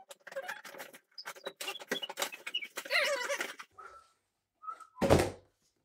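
A cardboard shipping box being opened by hand: a run of crackles and scrapes from the flaps, tape and packing, with a few short squeaky notes. A single loud thump comes about five seconds in.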